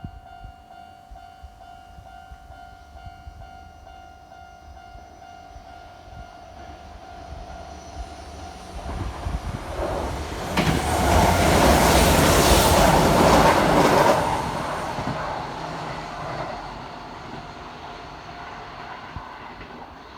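Level-crossing warning bell ringing in steady tones, then an electric train approaches and passes over the crossing. It is loudest from about halfway through and fades away over the last few seconds.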